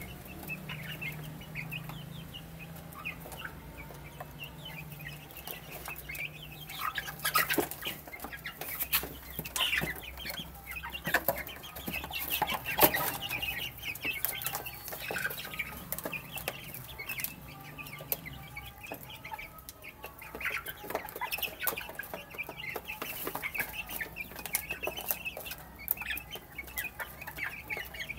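A group of baby chicks peeping continuously while they feed, with scattered sharp taps that are loudest around the middle.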